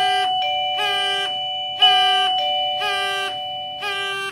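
A portable wireless doorbell pager receiver plays its electronic chime ringtone, set off by the call button being pushed. The tune is a run of pitched notes about once a second over long held tones.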